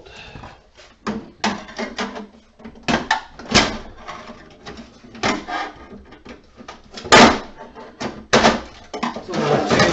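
Hand tools knocking and clattering against the housing of an emergency lighting unit as it is pried apart to free its battery: an irregular string of sharp knocks, loudest a little after seven seconds and again at about eight and a half.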